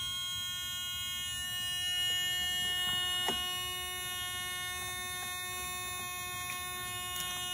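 A steady electrical hum or buzz, with a sharp click about three seconds in and a few lighter clicks and taps later, from a truck door lock mechanism being handled as the lock cylinder is exchanged.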